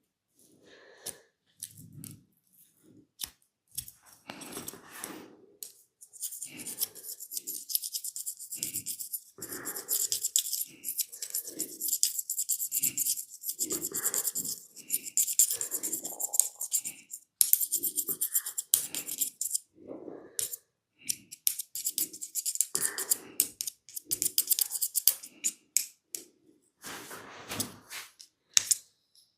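Hands rubbing and scratching oiled skin and hair close to the microphone: a dense crackling, rustling friction full of tiny clicks that sets in about six seconds in and eases off a few seconds before the end, with scattered soft rubs and pats around it.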